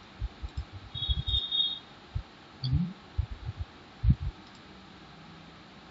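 Scattered soft, low thumps and knocks, a dozen or so in the first four and a half seconds, over faint steady hiss.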